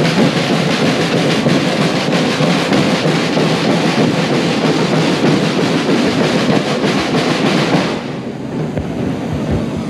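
Marching band percussion, snare drums and crash cymbals, playing a rapid beat that stops abruptly about eight seconds in.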